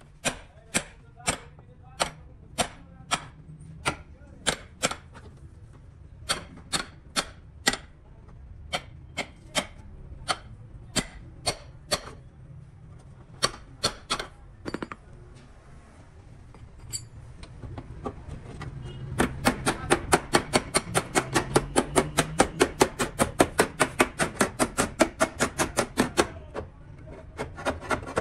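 Repeated sharp hammer blows, at first spaced about one or two a second in short runs. After a brief pause, a fast, louder run of about five blows a second follows for several seconds.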